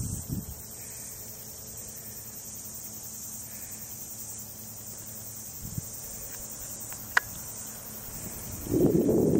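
Steady high-pitched chorus of insects singing in the bush, with a single sharp click about seven seconds in and a louder rushing noise coming in near the end.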